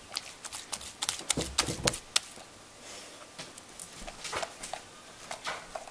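Sticky slime full of tiny beads and Orbeez clicking and squelching as hands pull it from a plastic container and press it into a bowl: a run of irregular small clicks, thickest about a second in, then scattered.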